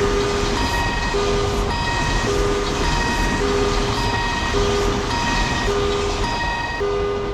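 Japanese railroad crossing warning alarm ringing, two tones alternating about twice a second, over the steady running noise of a train.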